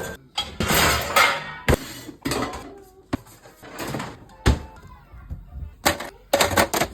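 Household clatter of tidying up: a string of sharp, irregular knocks and bumps as things are handled and set down, with a brief rushing noise about half a second in and a quick run of knocks near the end.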